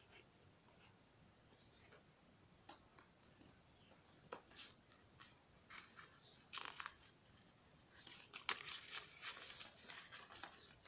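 A cardboard parcel and its paper and bubble-wrap packing being opened by hand: scattered tearing, crinkling and rustling, busiest in the last few seconds.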